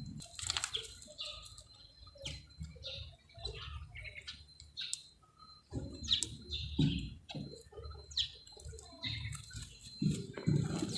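Short high-pitched chirps and squeaks from small animals, several falling in pitch, scattered over low rustling and knocking.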